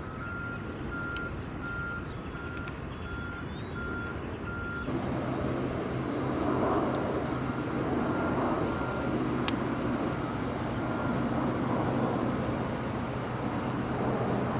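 A construction vehicle's reversing alarm beeps steadily at about one and a half beeps a second. About five seconds in, a heavy engine's low, steady hum and a louder rush of machinery noise come in, with the beeping still faintly there.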